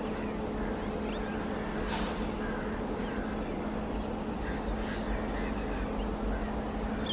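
Indian Railways WAG-9 electric freight locomotives approaching with a steady electrical hum over a low rumble, while small birds chirp now and then.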